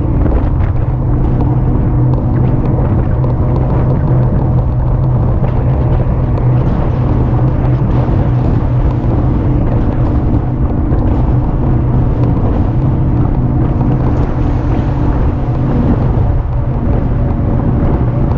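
Steady wind rumble on the microphone and a constant low hum while riding an e-bike, running evenly with no breaks.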